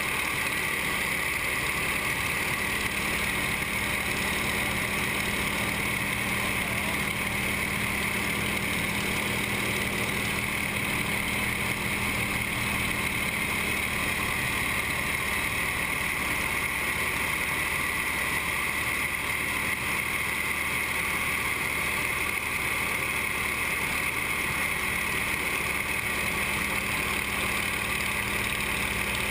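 Nine-cylinder radial engine and propeller of an aerobatic trainer running steadily in flight, heard from inside the cockpit as a constant drone.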